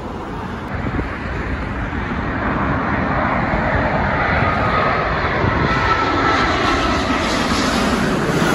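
Jet airliner engines on final approach, passing low overhead: a broad engine noise that grows steadily louder, with a faint steady whine in the middle.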